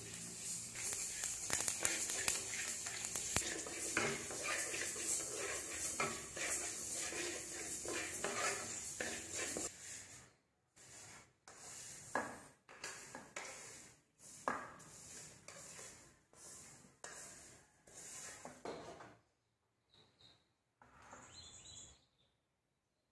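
Wooden spatula stirring and scraping black seeds dry-roasting in an aluminium wok: a dense, steady rattle and scrape. After about ten seconds it gives way to separate scrapes and knocks of the spatula and wok as the seeds are pushed out of the tipped wok into a bowl.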